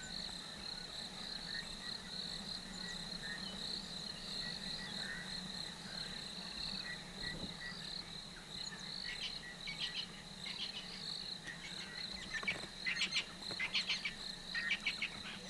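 Steady high-pitched chorus of crickets or other insects trilling, with clusters of short high chirps in the second half.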